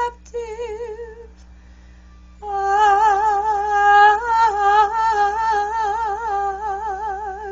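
A woman singing in trained classical soprano style. She ends the word "adaptive" with vibrato, pauses for about a second, then holds one long wordless note with wide vibrato.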